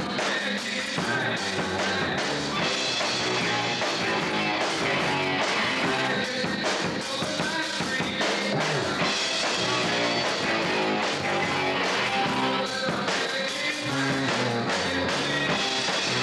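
Rock band playing live, with drum kit and electric guitar at a steady, loud level.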